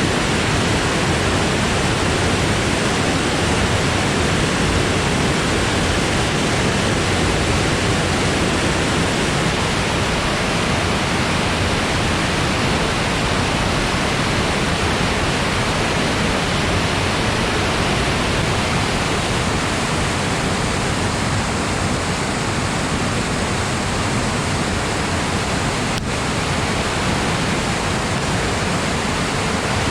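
Steady rush of river water running high after rain, a dense even roar of flowing water with a faint click about 26 seconds in.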